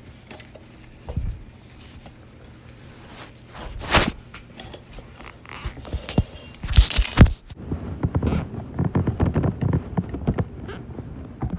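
Metal knocks and clunks as a Hawk 250 motorcycle's rear wheel is wiggled and pulled out of the swingarm, with a louder noisy burst about seven seconds in and then a run of light, irregular rattling clicks.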